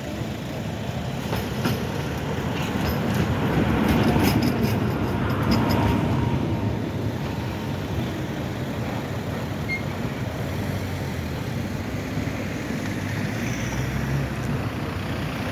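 Tram running past on street track. Its rumble swells to a peak about four to six seconds in, with a quick run of clicks from the wheels, then settles to a steady street noise.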